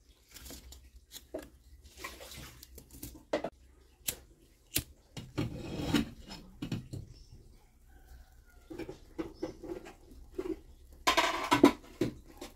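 Sticks of firewood knocking and scraping together as they are laid on the ash of a wood-fired stone hearth, with scattered sharp clicks. A lighter is flicked around the middle to light kindling, and a louder rustling scrape comes near the end as the burning kindling is pushed in under the wood.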